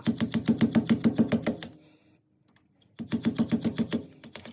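Rapid, even metallic tapping, about eight strikes a second, driving the rear brake caliper's pad retaining pin through. It comes in two runs with a pause of about a second between them.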